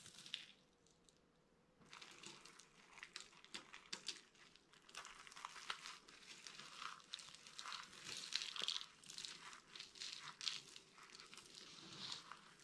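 Dry soap crumbling under pressure as it is crushed: a dense run of crisp, irregular crackles, starting after a brief pause near the start.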